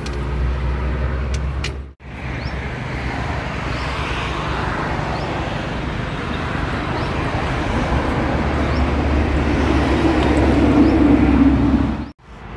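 Steady road traffic, with a vehicle growing louder near the end; the sound cuts off suddenly twice.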